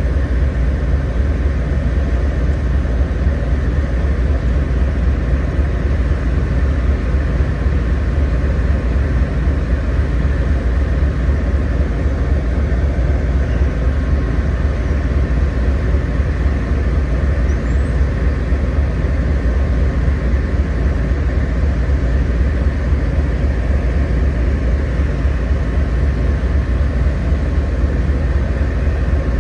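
Amtrak Siemens Charger diesel-electric locomotive running steadily, a loud deep engine rumble with a faint steady whine above it.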